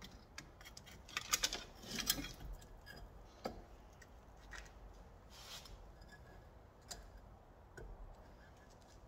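Scattered metal clicks and clanks of large slip-joint pliers gripping and working a brake caliper, squeezing the piston back in; the piston is a little seized. The loudest clicks come in a cluster about one to two seconds in.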